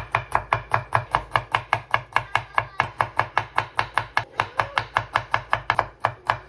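Knife chopping rapidly and evenly on a cutting board, about six strokes a second, each stroke a sharp knock with a dull thud from the board.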